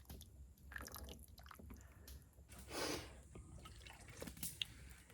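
Quiet sounds of someone eating hot soup: scattered light clicks and a brief louder whoosh about three seconds in.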